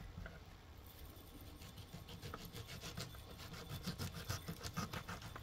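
Chili flakes being shaken from a small glass spice jar onto a dish, a quick run of repeated shaking rattles that starts about a second in and grows louder.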